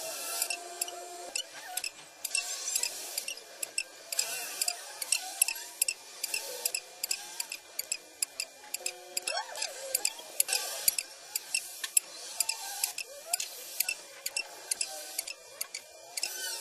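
Experimental soundtrack of irregular sharp clicks and surges of high hiss, with short pitched fragments in between.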